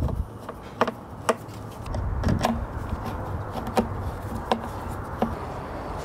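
Small sharp clicks and taps of a hand-held hex key working the screws that fasten a mass airflow sensor onto a plastic intake tube, about seven irregularly spaced clicks over a low steady rumble.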